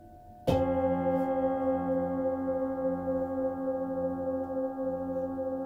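Metal singing bowl struck once with a mallet about half a second in, then ringing on with a low wavering hum and many overtones, slowly dying away. A fainter ring from an earlier bowl is still sounding under it at the start.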